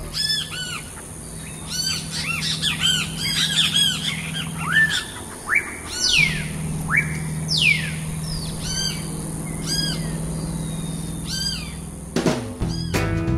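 Small birds chirping: many short, high, arched chirps repeated over and over, with two long falling whistles near the middle, over a steady low hum. Music with guitar comes in near the end.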